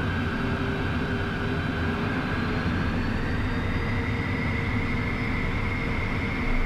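Beechcraft Premier 1A's twin Williams FJ44 turbofan engines heard from inside the cockpit: a steady rumble with a thin whine that rises slowly in pitch as thrust comes up to start the taxi.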